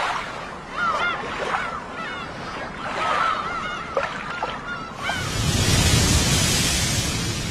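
Gulls calling in short, repeated arching cries. About five seconds in, the sound of surf washing onto a beach comes in and takes over, louder than the birds.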